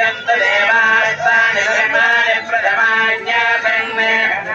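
Devotional chanting by a male voice with music behind it, over a steady held drone tone.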